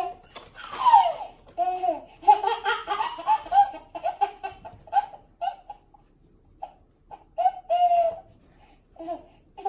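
A baby laughing out loud in bursts of belly laughs. About two seconds in comes a quick run of short laugh pulses, followed by shorter laughs with pauses between them.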